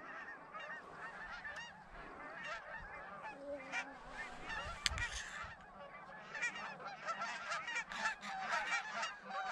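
A flock of Canada geese calling, many short overlapping honks at once, growing louder toward the end as the flock works in toward the decoys.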